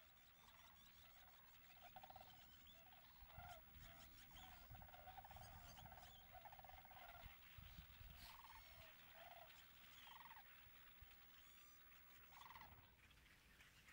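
Faint rolling, rattling calls of sandhill cranes, repeated many times, with high chirps and chips from a large blackbird flock mixed in above them.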